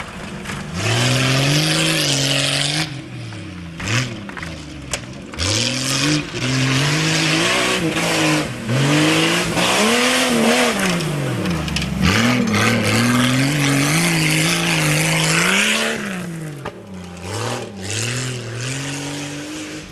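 Jeep Cherokee XJ race truck's engine revving hard and easing off again and again as it throws itself through a dirt slalom, with a hiss of tyres spinning and spraying dirt. The sound fades near the end as the truck drives away down the trail.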